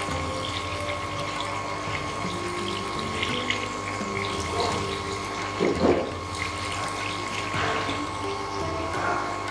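Marinated chicken pieces sizzling as they shallow-fry in hot oil in a frying pan, a steady hiss with a brief louder spell about six seconds in.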